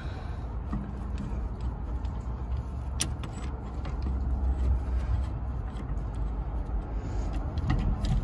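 Steady low rumble with a few light metallic clicks as a brake caliper piston wind-back tool is turned, pushing the piston back to make room for new pads; one sharper click about three seconds in.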